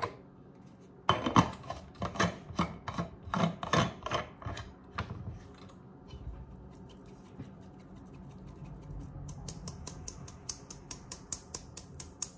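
Handheld mesh strainer knocked and shaken over a stainless steel bowl to sift flour: a run of sharp knocks in the first few seconds, then fast, even, light ticking of the sieve, several a second.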